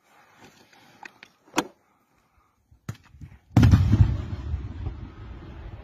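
A distant explosion: a sudden heavy boom about three and a half seconds in, its low rumble dying away over the next two seconds, with a few sharp clicks before it. It comes seconds after the anti-tank missile hit on the tank, which fits the blast of the hit tank reaching the firing position.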